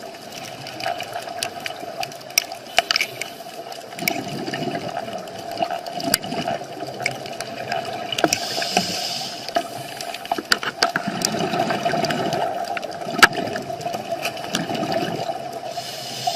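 Scuba diver breathing underwater through a regulator: a hiss on the inhale about halfway through, and bubbling bursts as exhaled air escapes, several times. Scattered sharp clicks and a steady hum sit underneath.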